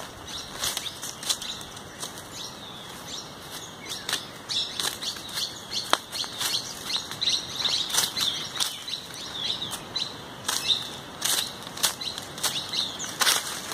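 Small birds chirping repeatedly in the trees, over irregular crunching and crackling of dry fallen leaves and twigs being stepped on and disturbed.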